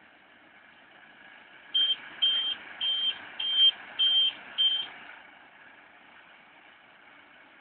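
Six short, high electronic beeps, about two a second, from the McHale Fusion 2 baler-wrapper's warning beeper as the wrapped bale is tipped out onto the ground. The tractor's engine and the baler run steadily underneath.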